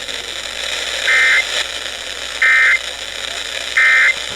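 Emergency Alert System SAME end-of-message (EOM) data tones on NOAA Weather Radio: three short, identical bursts of rapid two-tone digital data, each about a third of a second and spaced about a second and a half apart, marking the end of the alert broadcast. Steady radio static hiss runs underneath.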